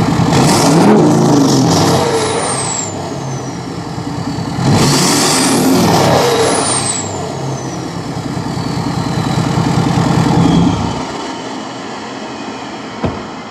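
2017 Ford F250's 6.7 Power Stroke turbo-diesel revved through its exhaust, with a high turbo whistle falling in pitch as each rev dies away. The engine sound drops away about eleven seconds in, and a single click follows near the end.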